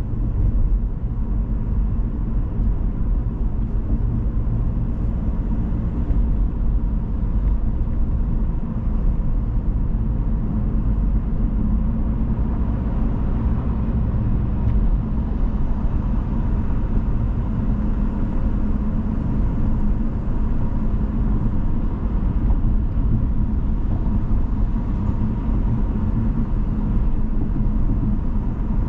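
Car driving: a steady low rumble of road and engine noise that does not let up.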